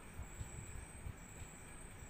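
Hot oil sizzling and bubbling as vadas of ground chana dal and ridge gourd peel deep-fry in a pan, with irregular crackles. A faint steady high whine runs behind it.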